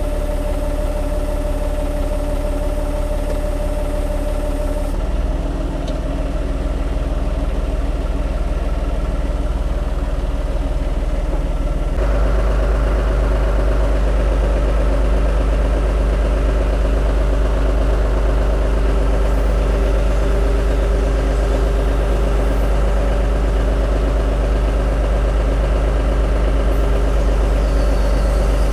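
John Deere tractor's diesel engine running steadily at low revs; it gets louder about twelve seconds in.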